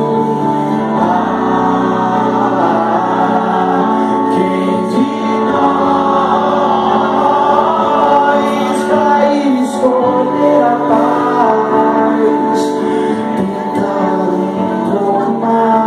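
Live band music: a male singer's voice over keyboard, drum kit and congas, playing continuously.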